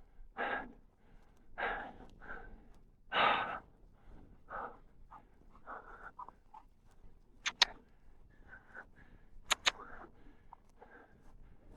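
A person breathing hard while climbing, with several heavy exhales in the first few seconds, the loudest about three seconds in. Two pairs of sharp clicks come about halfway through and again near the two-thirds mark.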